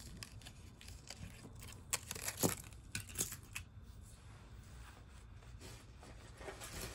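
Hands handling jewelry: a plastic number tag is slipped onto a metal necklace chain and the necklace with its plastic flower petals is lifted away, giving light clicks, chain jingles and rustles, most of them in the first few seconds.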